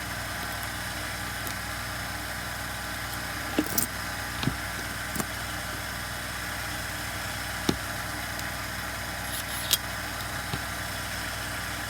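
Several light clicks and taps of small parts being handled during hand work on a chainsaw, spread out over a few seconds, over a steady background hum.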